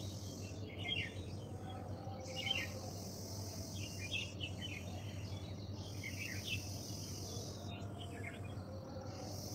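Birds chirping in short clusters every second or two over a steady high insect trill that cuts out briefly several times, with a low steady hum underneath.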